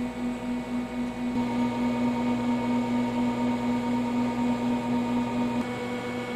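Steady machine hum with a constant low tone, wavering slightly at first and then steadier and a little fuller, changing character briefly near the end.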